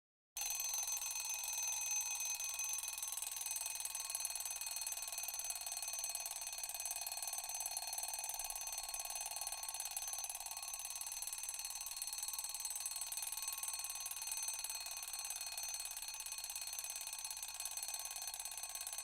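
Wind-up mechanical alarm clock ringing, its bell struck continuously in a steady, unbroken ring that starts suddenly.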